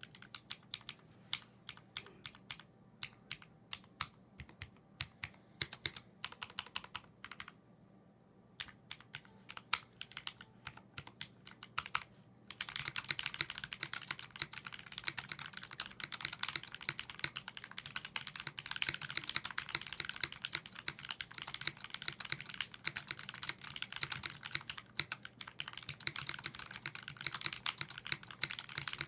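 Typing on a 60% mechanical keyboard with lubed vintage Cherry MX Black linear switches (65 g) in an aluminium case, with Desko keycaps. Single keystrokes come one at a time for about the first half, then give way to fast, continuous typing.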